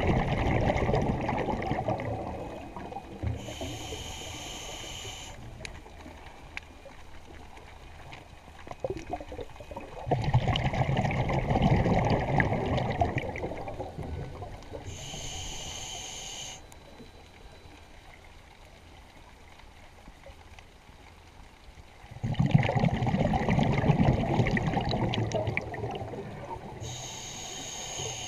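Scuba diver breathing through a regulator underwater, three full breaths. Each breath is a rush of exhaled bubbles lasting a few seconds, then after a pause a short, hissing inhalation whistle through the regulator, about every twelve seconds.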